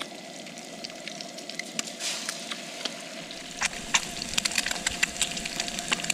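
Bacon and an egg sizzling in a frying pan on a Coleman camp stove, with a steady hiss and frequent pops and crackles of spattering fat that grow busier about halfway through.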